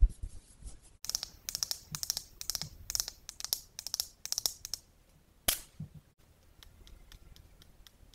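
Long fingernails tapping on a plastic lipstick case in quick double taps, about two pairs a second, for several seconds. A single sharp click follows as the lipstick cap comes off, then faint light ticks.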